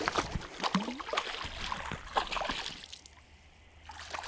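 Hooked eel thrashing at the water's surface: a run of irregular splashes and slaps that eases off about three seconds in and picks up again near the end.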